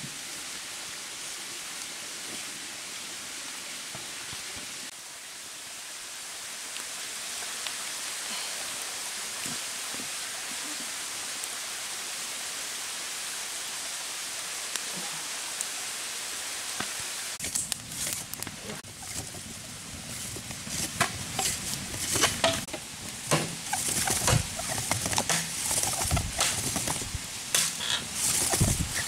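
A steady rushing hiss, then from about two-thirds of the way in, irregular sharp crackling with some low knocks, as of a wood fire burning in a mud-built stove.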